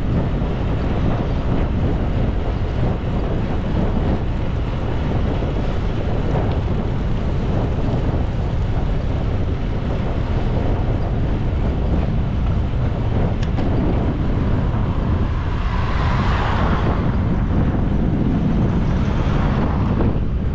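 Wind rushing over a handlebar-mounted action camera's microphone while cycling, a steady low rumbling noise. It swells briefly and brightens about sixteen seconds in.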